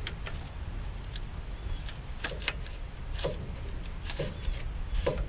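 Scattered light clicks and taps, about one a second, as an oil filter wrench is fitted around a newly installed oil filter and worked to snug it.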